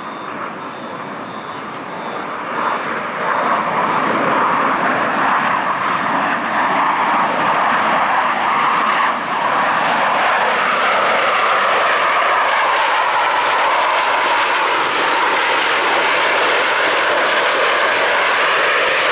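Jet roar from four Blue Angels F/A-18 Super Hornets flying past in diamond formation. It grows louder over the first three to four seconds, then holds a loud, steady rush whose tone slowly swirls as the jets pass.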